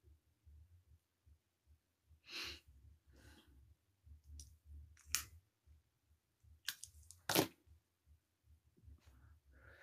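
Quiet room with a faint low hum and a few short rustles and clicks; the loudest is a sharp click about seven seconds in.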